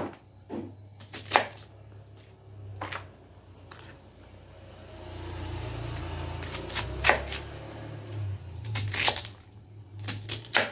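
Kitchen knife chopping cabbage on a wooden cutting board: scattered sharp chops, some in quick clusters of two or three. A low steady hum underneath grows louder midway.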